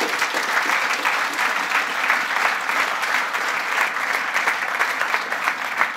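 Audience applauding, many hands clapping together at an even level.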